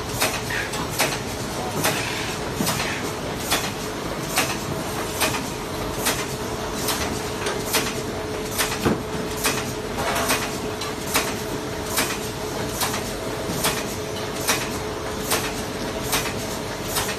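Adhesive tape cutting machine running: a steady mechanical hum with a held tone, and a sharp click a little more than once a second as it works through its cutting cycle.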